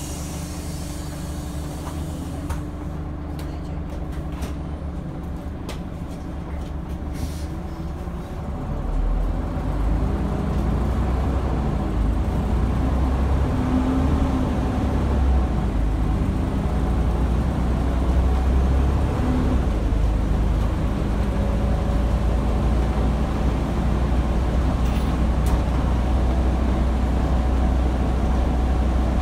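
Rear-mounted Scania DC9 five-cylinder diesel of a Scania N94UD double-decker bus, heard from the lower deck: idling steadily at a stop, then getting louder as the bus pulls away about eight seconds in. It then runs under load, its note rising and dropping back through the gear changes.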